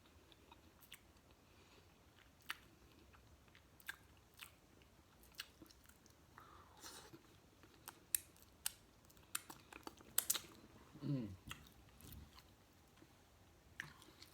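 Close-up eating sounds: chewing and biting with scattered sharp wet clicks and cracks, busiest about ten seconds in, and a short falling hum just after.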